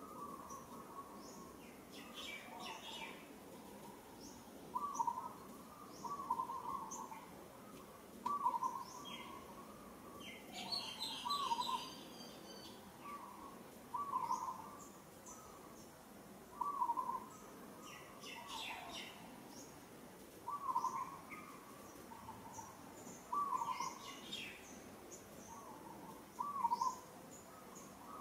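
Wild birds calling in the surrounding trees: a short, low call repeated every second or two, with scattered high chirps and a few brief bursts of higher twittering.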